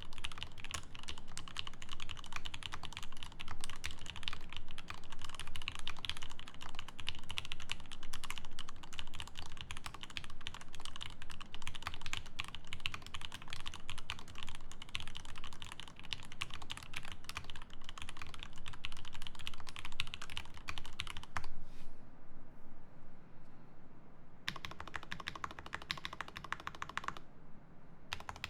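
Rapid typing on an Alicia-layout mechanical keyboard with an acrylic plate, factory-lubed Ultramarine switches and GMK keycaps: a dense run of keystroke clacks. It pauses for a few seconds about three-quarters of the way through and again briefly near the end.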